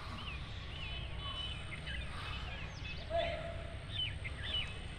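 Small birds chirping: repeated short, curved high calls, several overlapping, over a steady low outdoor rumble with wind on the microphone. A short, lower tone stands out about three seconds in.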